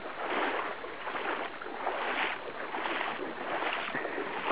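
Footsteps: a swishing step of noise about every two-thirds of a second, at walking pace.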